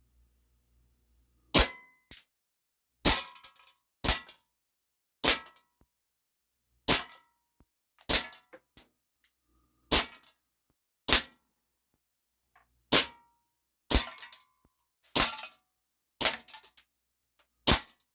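Steyr L9-A2 CO2 blowback airsoft pistol firing 0.20 g BBs at an aluminum can, about thirteen sharp shots one to two seconds apart. Each shot is followed by a brief metallic ring.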